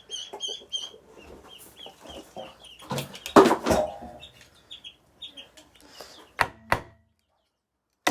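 Baby chicks peeping, a quick run of short high cheeps that thins out after a few seconds. A louder noisy clatter comes about three seconds in, and two sharp knocks near the end.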